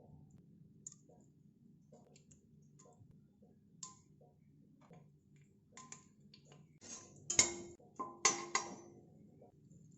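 Metal cookware clinking: scattered light clicks, then a few louder clanks with a brief metallic ring from about seven seconds in, over a faint steady hum.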